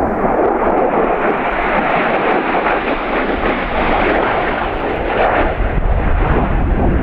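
Jet engine noise of a Lockheed F-16 Fighting Falcon flying past: a loud, steady rush whose low rumble grows deeper from about five and a half seconds in.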